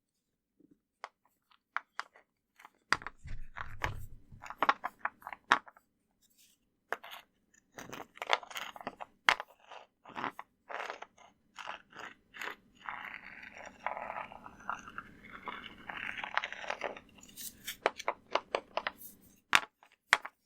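A piece of concrete pavement scraping and grinding on a large rock in short gritty strokes, with a longer stretch of continuous scraping in the later part.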